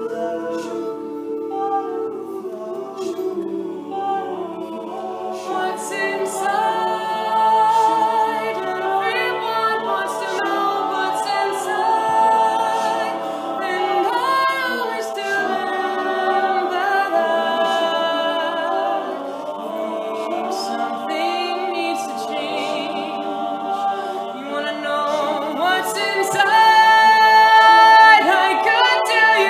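Male a cappella vocal group singing in harmony with no instruments, several voices holding sustained chords as the song opens. It swells louder near the end.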